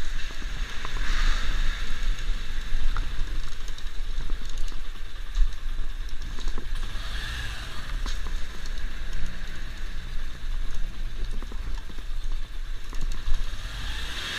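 A heavy motorcycle being walked and turned by hand on concrete: shuffling footsteps and handling knocks over a low, steady rumble.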